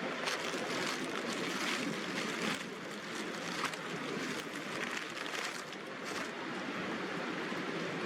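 Rain falling steadily, an even hiss with some heavier spatters in the first half.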